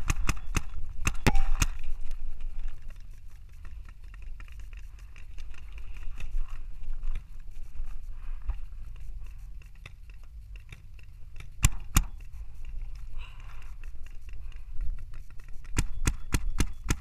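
Paintball markers firing in sharp single pops: a quick flurry in the first two seconds, a pair near the middle, and a fast string of about five near the end. A low wind rumble runs under them on the gun-mounted camera's microphone.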